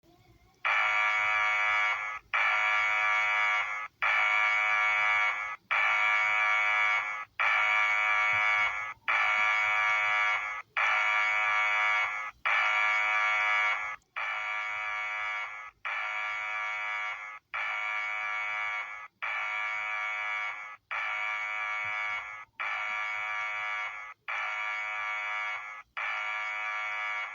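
Earthquake warning alarm sounding a harsh buzzing tone in sixteen evenly repeated blasts of about a second and a half each, with short gaps between them. The blasts drop to a lower level about halfway through.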